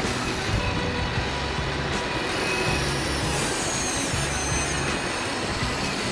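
Remote-control excavator's small electric motors whirring as the boom swings down and the bucket digs into sand, with a faint rising and falling whine about three to five seconds in, over a steady hiss.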